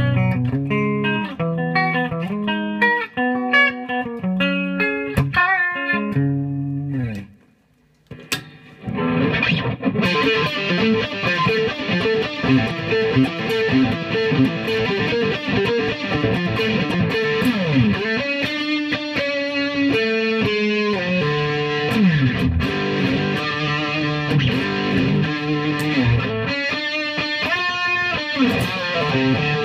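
Ibanez JS-series electric guitar played through an amplifier. Distinct picked notes in a cleaner tone, a short stop about seven seconds in, then distorted riffs and lead lines with fast runs.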